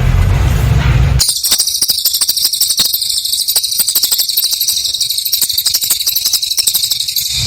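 Cililin bird singing a continuous, very high, rapid buzzing trill that starts abruptly about a second in and cuts off just before the end.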